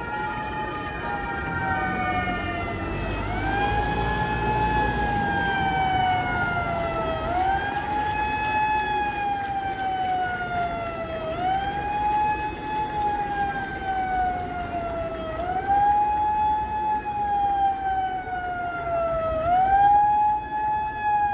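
Emergency vehicle siren wailing: each cycle rises quickly in pitch and then falls slowly, repeating about every four seconds.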